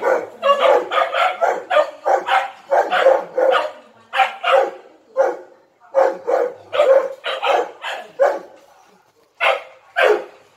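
Dogs barking hard in quick runs, about three barks a second, with a couple of short pauses: territorial barking at a strange dog on the other side of a gate.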